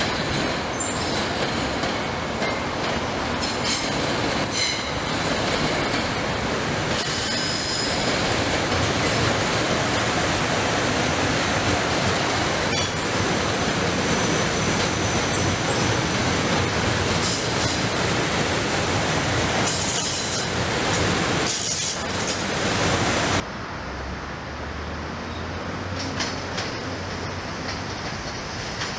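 SEPTA Silverliner IV electric multiple-unit commuter train rolling past over switches, its wheels clattering with high wheel squeal at several points. The sound cuts off abruptly about 23 seconds in to a quieter, fainter train sound.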